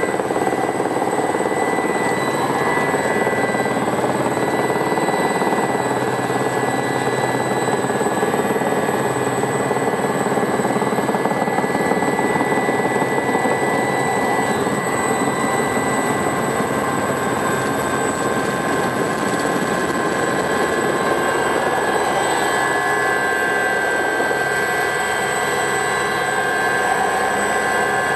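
Aerospatiale Alouette II SA318C helicopter in flight, heard on board: its Turbomeca Astazou turboshaft runs with a steady high-pitched whine over the constant rush of rotor and airflow noise.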